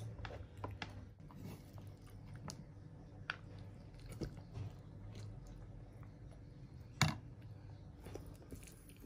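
Quiet eating sounds: chewing rice and tempe orek, with small scattered clicks and one sharper click about seven seconds in.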